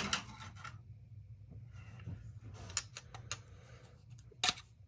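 Screwdriver working at a small metal carburetor part: light scraping and scattered small clicks, with one sharper click near the end.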